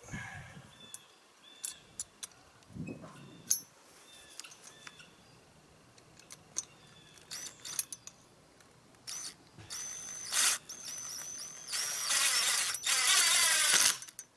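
Power drill driving a screw into wood to mount a gate latch: a short run about ten seconds in, then a longer, louder whining run near the end. Before it, small clicks and clinks of handling the latch and screws.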